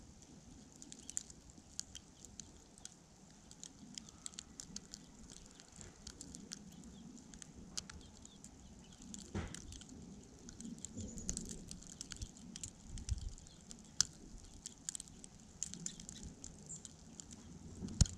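Light, irregular ticking and patter of falling snow striking the camera and the snowy ground, with one sharper click near the end and a faint low rumble in the middle.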